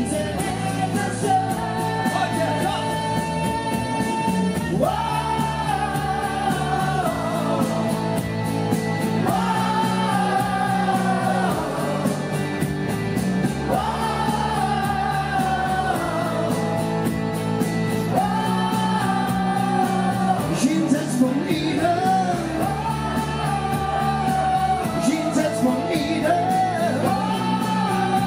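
A woman and a man singing a duet into microphones over pop-style instrumental backing, in sung phrases of about four seconds with long held notes, amplified through a stage PA.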